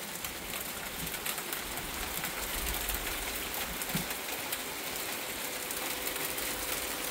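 Hail and rain hitting a wooden deck and the surrounding trees in a dense, crackling clatter of many small impacts, growing louder about a second in as the doorway opens onto the storm.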